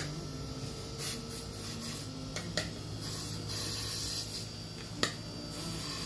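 Inverter air-conditioner fan motor running steadily on a test bench, giving a low hum, with a few sharp clicks from handling on the bench; the loudest click comes about five seconds in.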